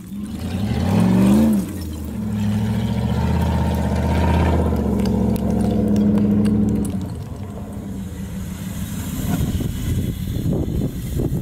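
Jeep Grand Cherokee ZJ's 5.2-litre V8 revving up and dropping back about a second in, then pulling steadily under load as the Jeep climbs a loose shale slope. Toward the end the steady engine note gives way to rougher, uneven noise.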